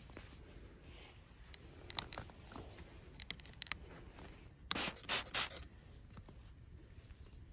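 Scratchy rustling and light ticks of a cloth being rubbed and pressed against a metal feeder pole, then several quick squirts from a trigger spray bottle that make a loud hissing burst about five seconds in.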